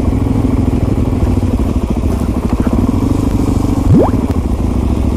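Dual-sport motorcycle engine running steadily at low speed, heard from the rider's seat. Just before four seconds in there is one quick rising squeak.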